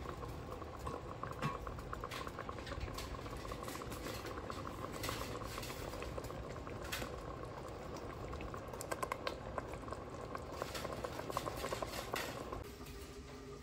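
Thick tomato and onion sauce with ground spices simmering in vegetable oil in a pot, bubbling with many small pops and spits, the sign that it is cooking down on the heat. The sound drops away shortly before the end.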